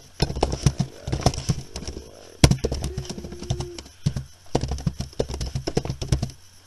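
Computer keyboard and mouse being worked: rapid, irregular clattering clicks and taps close to the microphone, with one sharper click about two and a half seconds in, followed by a brief steady tone lasting under a second.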